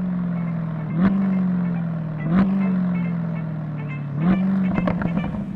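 2020 C8 Corvette's 6.2-litre V8 running through a CORSA catback exhaust at low revs. Three times the revs jump up sharply with a crack, and the note sags slowly between the jumps.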